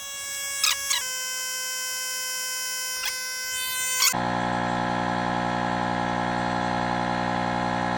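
Electric inflation pump running with a steady high whine. About four seconds in the sound switches abruptly to a louder, lower buzzing drone.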